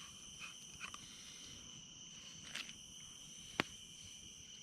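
Steady insect chorus, a continuous high trill at two steady pitches, with a few faint ticks and one sharp click about three and a half seconds in.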